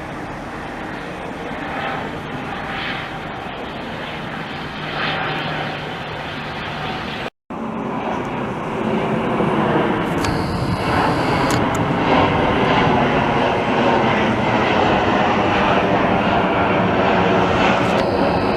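Jet airliner on landing approach passing overhead, its engine noise steady. After a brief break in the sound about seven seconds in, the noise is louder.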